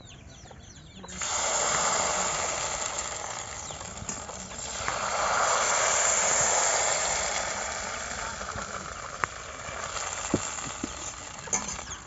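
Thin rice-and-coconut batter sizzling in a hot oiled kadai, starting suddenly about a second in as the batter goes into the pan. The sizzle swells again around five seconds in, then slowly dies down as the lacy pancake sets.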